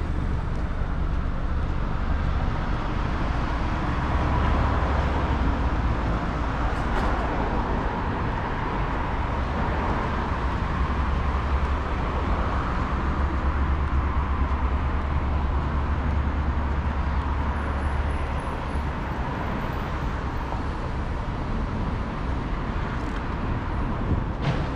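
Steady city street traffic noise, with a deep low rumble that eases off about three quarters of the way through.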